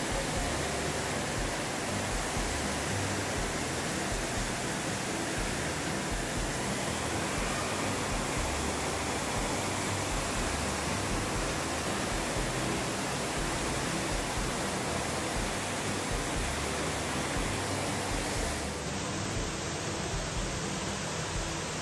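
Steady, even rushing noise with no distinct events, its tone changing slightly about nineteen seconds in.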